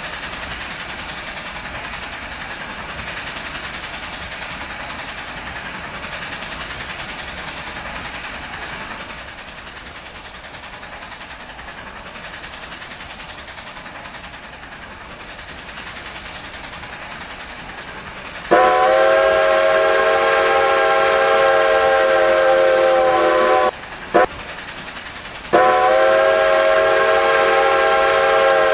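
Steady running noise of a train for most of the time. Then Strasburg Rail Road #90, a 2-10-0 steam locomotive, blows its whistle, a chord of several notes: one long blast of about five seconds, a very short toot, then another long blast that is still sounding at the end.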